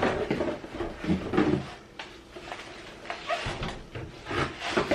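A few separate knocks and clunks as drinks and water bottles are handled and set into a mini refrigerator.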